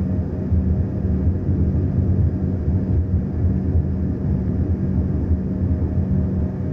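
Airliner engines running: a steady low rumble with a constant hum.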